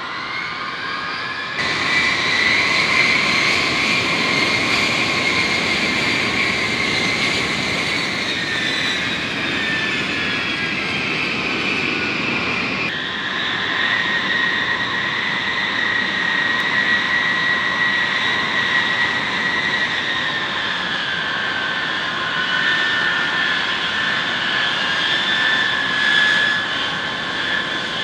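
B-52H bomber's eight TF33 turbofan jet engines running at taxi power, a steady loud jet whine with high tones that slide slightly lower at times. The sound jumps abruptly louder about a second and a half in and changes character again near the middle.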